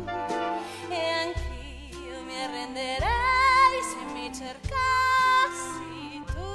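Show-tune music from a stage musical: orchestral accompaniment with a singer holding long, swelling notes with vibrato.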